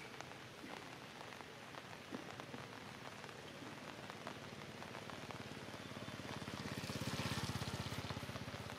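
Steady rain pattering, with scattered small drop ticks. From about six seconds in, a louder rushing swell with a fast, even low pulsing rises and then fades just before the end.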